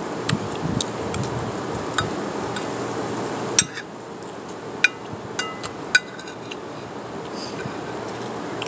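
Metal spoon clinking and scraping on a ceramic plate: a scattering of sharp clinks, the loudest about three and a half seconds in, a few followed by a short ringing tone. Under it, wind noise on the microphone drops away at the loudest clink.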